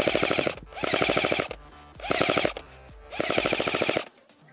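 Airsoft MP5 firing full-auto bursts: a rapid, even rattle of shots in four bursts, the first already under way at the start. Each burst opens with a brief rising whine.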